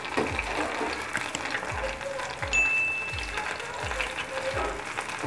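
Soya-chunk pakoras deep-frying in hot oil, a steady sizzle, under background music with a regular low beat. A short high ding sounds about two and a half seconds in.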